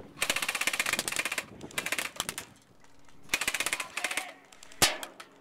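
Airsoft electric guns firing rapid full-auto bursts, three strings of fast clicking shots, then a single sharper shot near the end.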